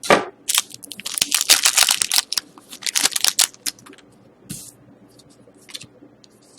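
Hockey card pack wrapper being torn open and crinkled: a quick run of sharp crackles for the first three and a half seconds, then a few scattered rustles as the cards are handled.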